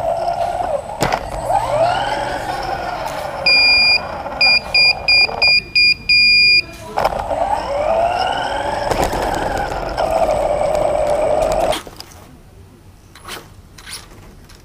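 Radio-controlled car's motor and drivetrain whining, the pitch rising and falling as the throttle is worked. A few seconds in, a loud electronic beeping, one long beep, a run of short ones, then another long one, becomes the loudest sound while the whine fades out. The whine comes back, then stops suddenly near the end, leaving only faint ticks and knocks.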